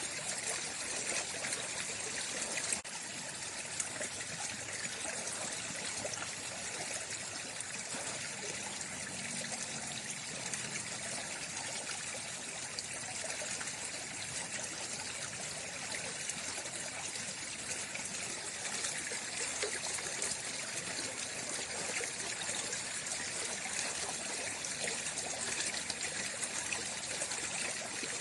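Flowing water, trickling and splashing steadily, with a slight drop in level about three seconds in.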